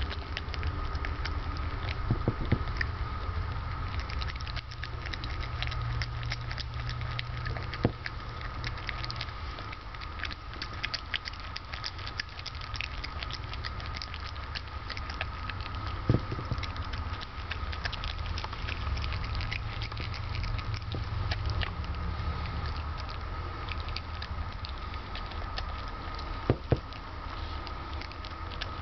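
Brushtail possum chewing banana close to the microphone: a dense run of small wet mouth clicks and smacks, with a few sharper clicks now and then, over a steady low hum.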